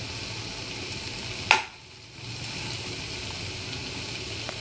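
Chicken pieces sizzling in a little ghee in a nonstick frying pan while a steel spoon stirs and breaks them up, dry-frying after the cooking water has evaporated. A single sharp click comes about a second and a half in, and the sizzle is briefly quieter just after it.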